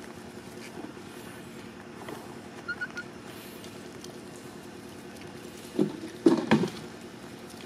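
A steady low hum of a few level tones, with two or three faint short chirps a little under three seconds in and a cluster of short louder sounds about six seconds in.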